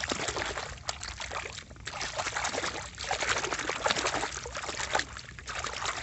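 Water splashing and sloshing as a hand swishes a small plastic toy bus back and forth to wash off mud. The splashing comes in surges, with brief lulls about a second and a half in and again near five seconds.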